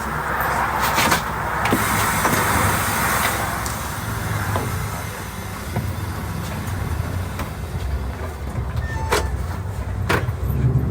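Cabin noise of an Irisbus bus on the move: a steady low drone from the engine and drivetrain with road noise, and a few sharp clicks near the start and again near the end.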